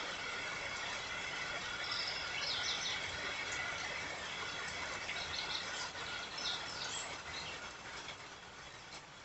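Steady rain with birds chirping in short bursts, several times over. A faint steady whine fades out, and the rain eases slightly near the end.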